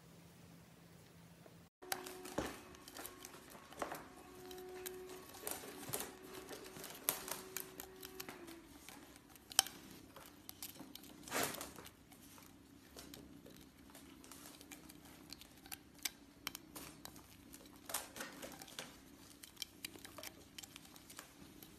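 A kitten chewing and biting a plastic drinking straw: irregular sharp clicks and crinkles of plastic, coming several times a second.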